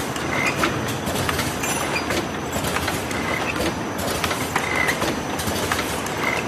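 Automatic cartoning machine for hanger-tab boxes running: a steady mechanical clatter of many small clicks, with a short high squeak about every second and a half.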